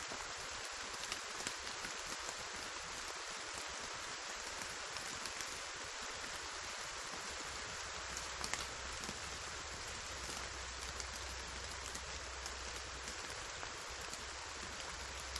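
Steady rainfall with individual drops ticking on a surface. A faint low rumble comes in about halfway through.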